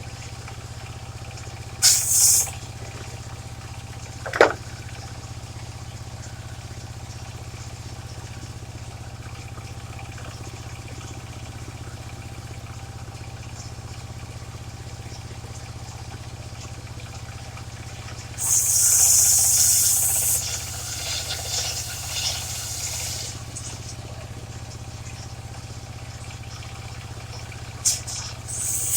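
The engine of a mobile circular sawmill running steadily, while the circular saw blade rips through waru wood in bursts of loud, high hissing: briefly about two seconds in, for a couple of seconds past the middle, and again near the end.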